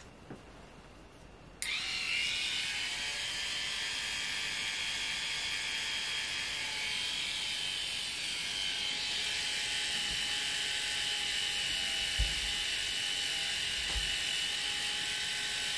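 Electric tattoo pen switched on about a second and a half in, then buzzing steadily as it tattoos a rabbit's ear. Two soft low knocks come near the end.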